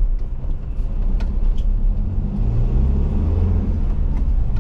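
Engine and road noise heard from inside the cab of a 2024 Swift Escape 694 motorhome on the move, the engine note building and rising a little from about halfway as it accelerates. A few light knocks or rattles sound over the rumble.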